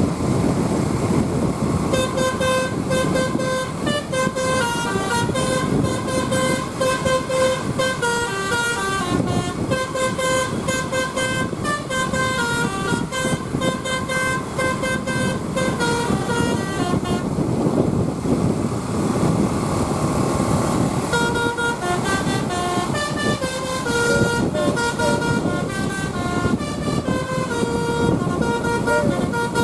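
A bus's telolet basuri musical air horn playing a tune in quick stepping notes, over a steady low rumble. The melody starts about two seconds in, breaks off for a few seconds past the middle, then starts again and runs on.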